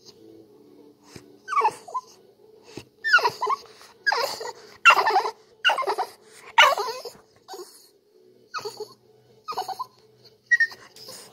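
A French bulldog whining: a run of about a dozen short, high-pitched whimpers, loudest in the middle. The dog is begging to be let up onto the couch.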